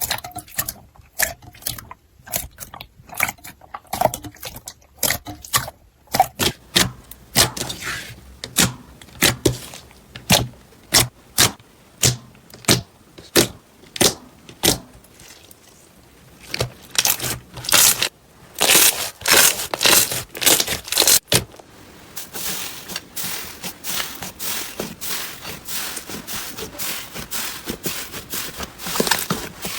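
Slime being squeezed and worked by hand, giving a run of sticky pops about one or two a second, then a denser fine crackling after a sharp snap about two-thirds of the way through.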